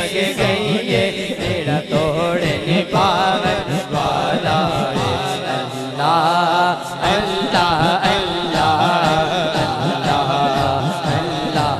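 A man singing a devotional Urdu kalam (naat) unaccompanied into a microphone over a PA system, in long, wavering, ornamented phrases.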